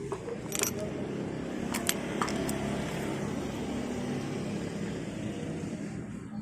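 Single-cylinder motorcycle engine running steadily, with a few short metallic clicks and clinks about half a second and two seconds in.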